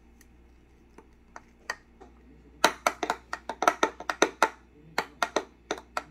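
Metal spoon clicking against the sides of a bowl while stirring strawberry puree into cream: a few scattered taps, then a quick run of clicks from about two and a half seconds in.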